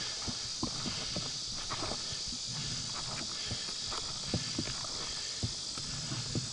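Footsteps of hikers crunching and scuffing irregularly over a rocky, gravelly trail, with a steady high-pitched drone of insects behind.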